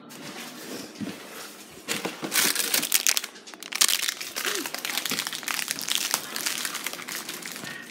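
Plastic packaging crinkling and rustling as it is handled, loudest between about two and four seconds in.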